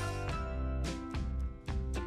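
Background music: a rhythmic guitar tune, strummed chords over a steady bass.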